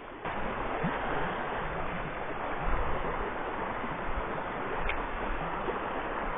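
Steady rush of a shallow river's flowing water, starting suddenly just after the start, with a few low bumps around the middle.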